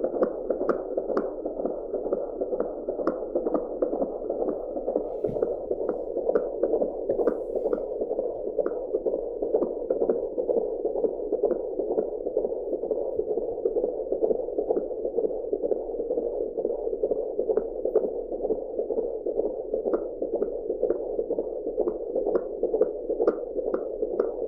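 Fetal heartbeat heard through an AngelSounds handheld doppler: a steady hiss pulsing in a fast, even rhythm of about two beats a second.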